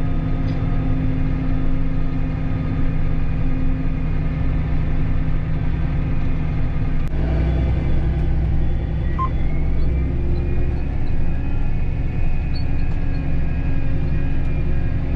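Heavy diesel farm machinery running steadily. About seven seconds in the sound shifts, and soon after a thin whine rises in pitch and then holds.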